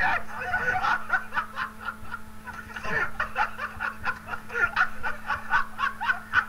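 People laughing without a break, in a rapid string of high-pitched laughs.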